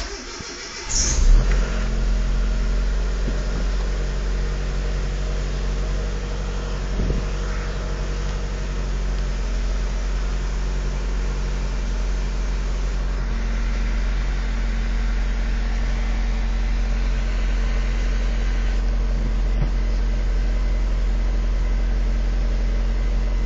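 Car engine cranked and catching about a second in, with a brief high-pitched noise at start-up from a worn accessory-belt tensioner bearing, then idling steadily.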